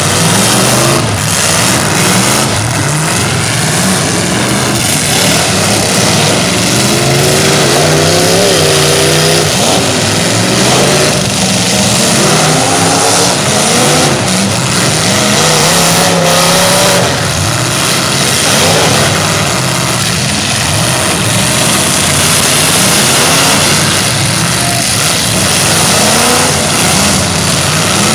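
Several demolition-derby car engines revving hard, their pitch rising and falling over and over as the cars spin their wheels and ram each other, with an occasional dull knock of car bodies colliding.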